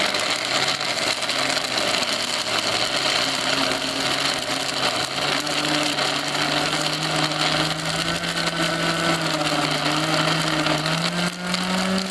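Electric blender motor running with its small grinding jar, grinding a dry mix of dried shrimp, pork floss, chili and seasoning into crumbs. The motor hum is steady, and its pitch rises slowly with a step up near the end.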